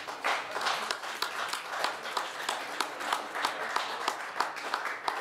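Audience applauding at the end of a tune, a dense patter of hand claps with a few sharp claps close by standing out.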